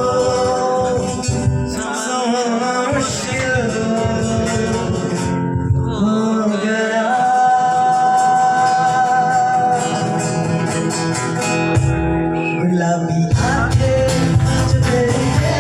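Music: a Hindi song with a voice singing long, drawn-out notes over guitar accompaniment.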